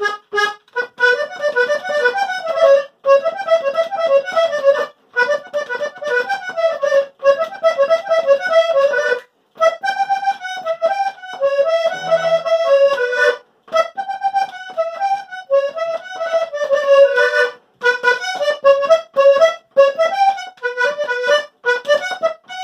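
Hohner Corona button accordion played solo: a melody of quick separate notes in phrases, with brief pauses between the phrases.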